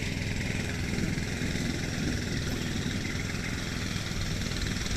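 Steady wind buffeting the microphone, a low rumbling flutter with a fainter hiss above it.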